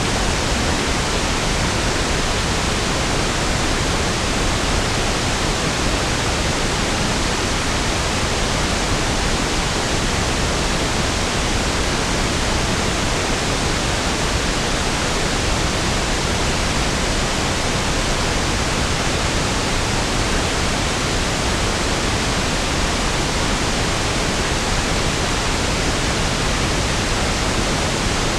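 Steady pink noise (1/f noise): an even, unchanging hiss with equal energy per octave, softer and deeper than white noise.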